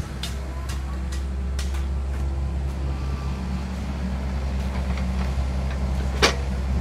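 Kobelco SK50 excavator's diesel engine running steadily, with a few light clicks in the first two seconds and one sharper knock near the end.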